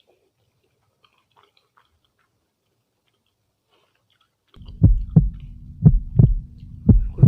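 Heartbeat sound, steady double thumps (lub-dub) about once a second over a low hum, starting suddenly about four and a half seconds in.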